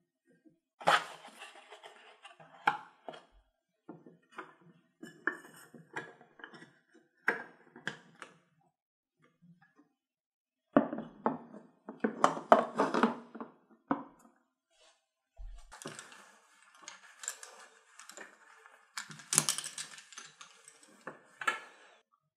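Clicks, taps and knocks of hard plastic: a clear acrylic cotton-pad holder and cosmetic bottles being handled, set down and shifted on a shelf, with soft rustling between. A dense run of clatter comes about halfway through.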